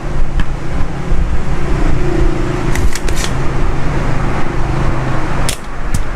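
Hot-air rework station blowing steadily while the TV power board's supply IC is desoldered, with a faint hum and a few sharp clicks of the work.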